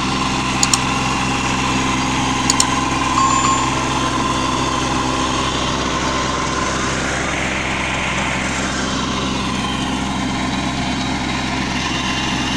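Kubota 21 hp compact tractor's diesel engine running steadily, with two quick double clicks in the first three seconds.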